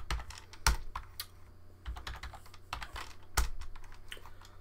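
Typing on a computer keyboard: irregular keystrokes, with two louder key presses about two-thirds of a second in and about three and a half seconds in. A low steady hum runs underneath.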